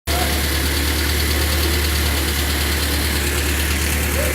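Seat 850 Especial's small rear-mounted four-cylinder engine idling steadily, freshly rebuilt and running shortly after its first start.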